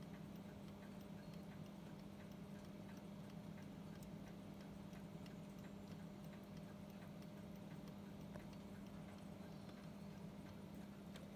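Antique brass four-glass oval regulator mantel clock ticking: a faint, steady, even tick of the running movement.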